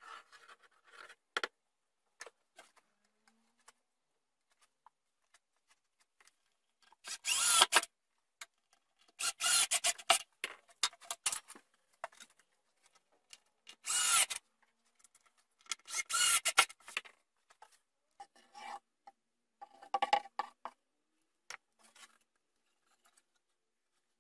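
Plywood parts scraping and rubbing against each other and the bench as the wooden box is positioned and fitted, in a series of short bursts. The loudest comes about seven to eight seconds in.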